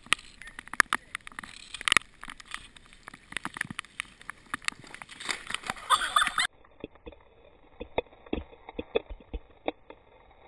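Irregular clicking and rattling of a ride over wet pavement, with a harsh scraping crash about six seconds in as a kick-scooter rider falls onto the road. After that the sound abruptly turns muffled and duller, with scattered soft clicks.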